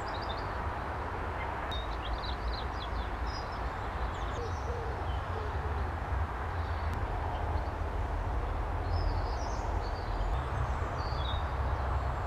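Small birds chirping in short, high, scattered phrases over a steady low rumble.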